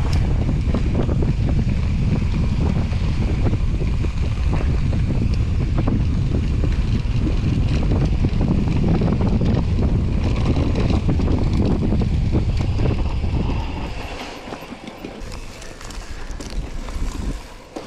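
Mountain bike riding down a rough trail: wind buffeting the microphone over a low rumble of tyres and frame rattling across rocks, with many small knocks. The noise drops off sharply about fourteen seconds in and turns patchier.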